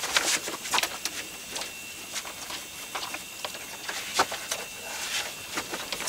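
Scissors cutting thin plastic sheeting, the sheet crinkling and crackling irregularly as it is cut and handled.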